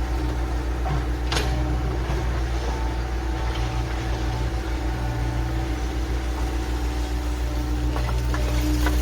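Excavator diesel engine running steadily, with a single sharp click about a second and a half in. No breaker hammering is heard.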